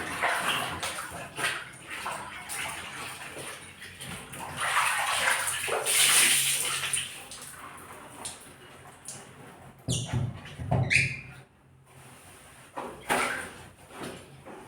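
Running and splashing water that comes and goes, with a few sharp clicks and knocks.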